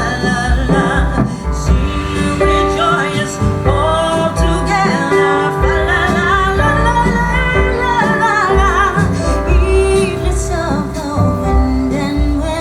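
A song with a sung vocal line that wavers and slides in pitch, over heavy bass, played back through surround speakers and an active subwoofer in a sound test.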